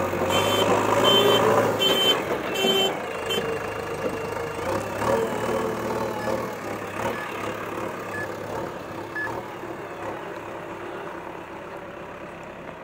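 JCB backhoe loader's diesel engine running as the machine drives, with its reversing alarm beeping about twice a second for the first three seconds or so, then stopping. The engine sound fades steadily as the machine moves away.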